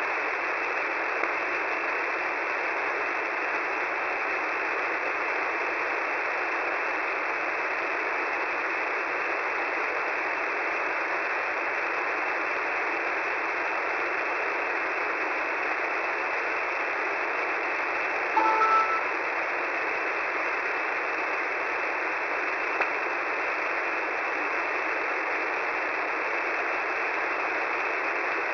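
Shortwave radio receiver tuned to 10755 kHz, giving steady static hiss. About eighteen and a half seconds in there is a brief two-note beep.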